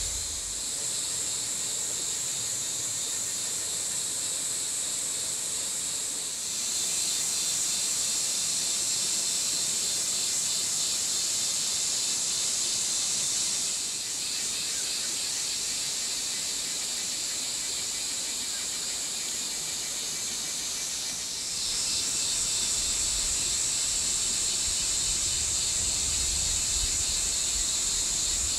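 Steady high-pitched insect chorus, stepping louder and quieter a few times.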